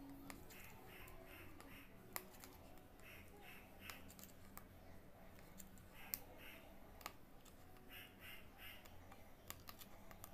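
Near silence, with scattered faint sharp clicks from an aari hook needle piercing fabric stretched on a frame while beads are stitched along a border.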